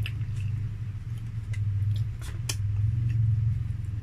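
A steady low hum, with scattered light clicks and crackles from fingers picking at and lifting fried chicken in a foam takeout box.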